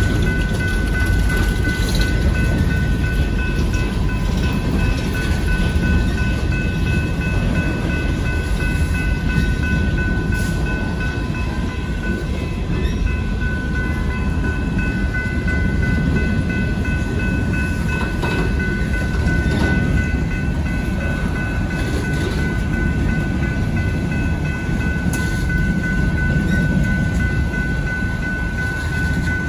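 Union Pacific coal train's gondola cars rolling steadily past a grade crossing: a continuous low rumble with irregular clacks of wheels over the rail joints. Over it the crossing bell rings steadily as a high, even ringing.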